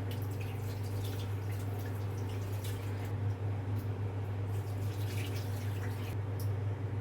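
A steady low hum with scattered faint clicks and crackles.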